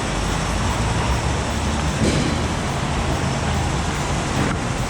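Steady outdoor background noise: a low rumble under an even hiss, with no distinct knocks or taps.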